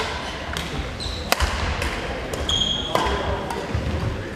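Badminton rally: several sharp shuttlecock strikes off racket strings, each ringing briefly in a large hall, with two short squeaks of shoes on the wooden court floor.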